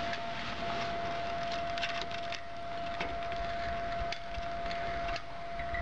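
Bicycle chain links clicking lightly as the chain is handled, over a steady tone from the surroundings.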